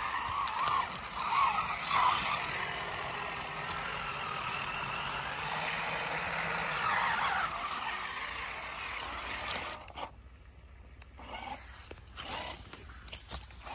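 Fayee FY004A RC 6x6 toy truck's geared electric motor whining while its tyres churn and splash through muddy water. After about ten seconds it goes quieter, leaving scattered scrapes and clicks as the wheels crawl over wet dirt.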